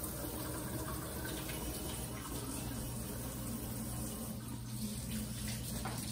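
Kitchen faucet running steadily into a stainless steel sink while hands are washed under the stream.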